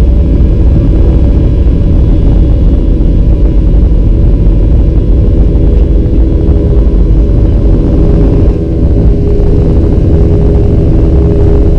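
Boeing 737-800's CFM56-7B turbofan engines at takeoff thrust during the takeoff roll, heard from inside the cabin by the wing. It is a loud steady roar with several steady humming tones, over a deep rumble from the runway. There is a brief dip in loudness about eight seconds in.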